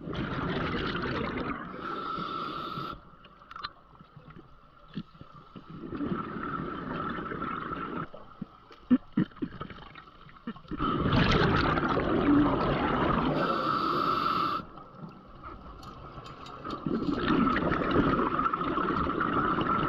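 A scuba diver breathing through a regulator underwater: four breaths, each a rush of gurgling exhaled bubbles, some ending in a higher hiss, over a thin steady tone. A few clicks come about nine seconds in.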